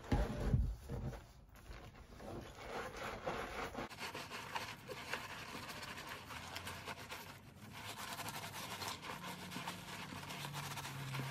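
Soapy loofah scrubbing the wet fabric bib and padded lining inside a fencing mask: continuous soft, scratchy rubbing, with a few low bumps from handling the mask at the start.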